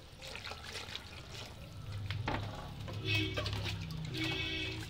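A hand stirring and squishing through watery, masala-coated raw mutton and onions in an aluminium pressure cooker, with liquid sloshing. Two short pitched sounds stand out in the second half.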